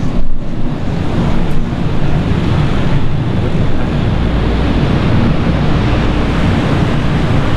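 Loud wind buffeting the microphone, a dense rushing noise heaviest in the low end, gusting unevenly.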